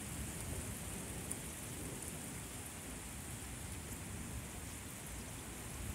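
Steady rain falling on pavement and grass in a thunderstorm, an even hiss with a low rumble underneath.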